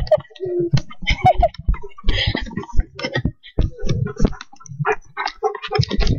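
Irregular clicks and knocks of a handheld camera jostling while running on a dirt trail, mixed with footfalls and short breathy fragments.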